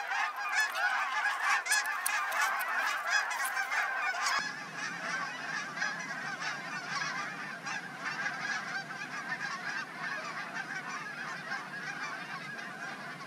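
A large flock of geese honking as they fly over, many calls overlapping in a steady chorus that turns a little fainter about four seconds in.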